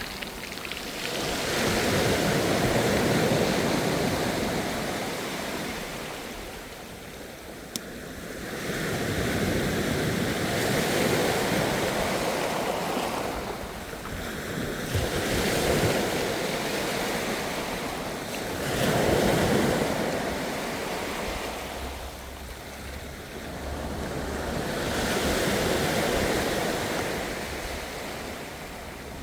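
Ocean waves washing in and drawing back, swelling and fading every few seconds, with some wind on the microphone. A single faint click sounds about eight seconds in.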